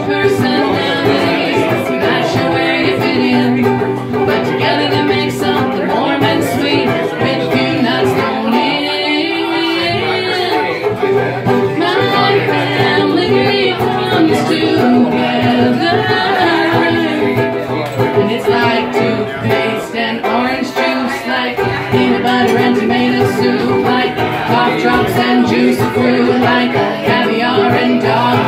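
Live acoustic duo: a banjo ukulele and an acoustic guitar strummed together, with two women singing.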